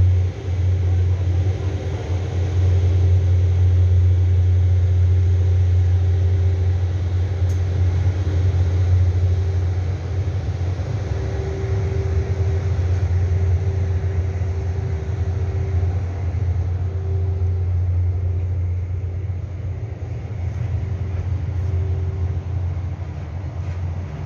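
Diesel train engine running steadily at a station, giving a loud, even low hum with a fainter higher tone above it.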